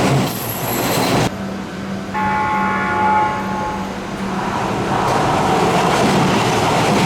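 Seibu Railway train horn sounding a chord of steady tones for about two seconds as a warning on the approach, over the low hum of the train. Around it is the noise of the train rolling into the station, which cuts off abruptly about a second in and swells again after the horn.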